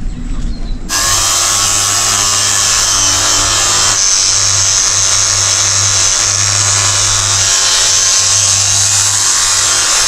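Angle grinder starting abruptly about a second in and then running steadily, loud, as it grinds old paint and rust off the steel roof of a narrowboat.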